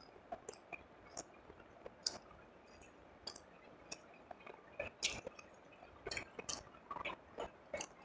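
Close-miked mouth sounds of a person chewing a mouthful of food: irregular wet clicks and smacks, a little denser in the second half.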